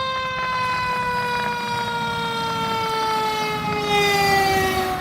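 Fire truck siren holding one long tone that slowly and steadily falls in pitch, a little louder near the end.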